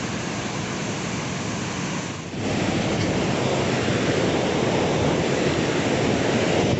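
Fast-flowing Tons river whitewater rushing steadily and very loudly. About two seconds in the sound dips briefly and then comes back louder and fuller.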